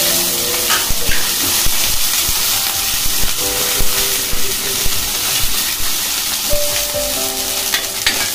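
Onions, green chillies and curry leaves sizzling in hot oil in a kadai, a steady hiss, while a steel ladle stirs them with scattered scrapes and knocks against the pan.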